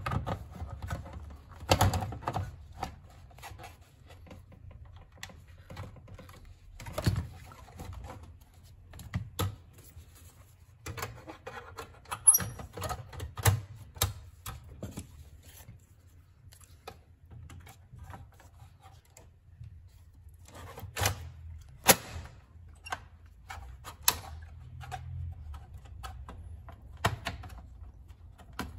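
Metal and plastic parts of an HP dc7600 Ultraslim desktop case being handled as the optical drive and its metal cage come out: scattered clicks, knocks and clacks, irregular, with the loudest few sharp knocks about two thirds of the way through.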